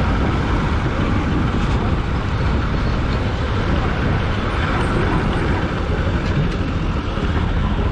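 Steady rumble and road noise of a moving vehicle driving along a road, with no change in pace.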